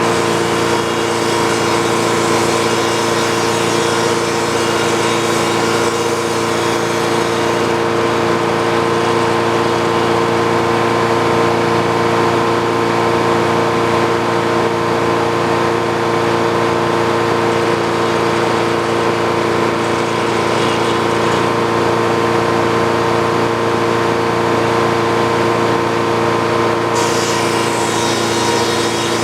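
Old Frick sawmill running steadily: the drone of its power unit and spinning saw, holding one even pitch. A brighter hiss joins near the end.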